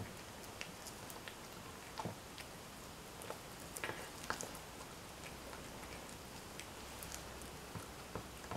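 A cat eating wet cat food: faint, irregular clicks and smacks of chewing and licking, a few louder ones about two seconds in and around four seconds in.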